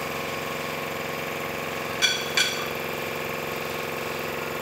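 A steady mechanical hum from a running machine, with two sharp metal clinks about two seconds in as steel gearbox parts are handled and knocked together.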